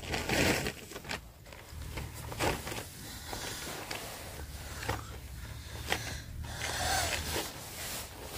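Rustling and scraping handling noises with scattered short clicks, over a low steady rumble.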